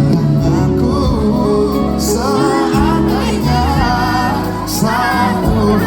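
Live band playing a slow pop ballad, with a singer holding long notes with vibrato over the band.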